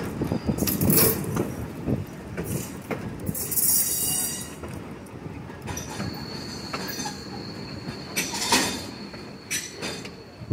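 Rumble and clatter of a heritage train's cars rolling along the track, heard from an open gondola passenger car. Brief bursts of high wheel squeal come about a second in, around four seconds and around eight and a half seconds, and a thin steady squeal runs from about six seconds in.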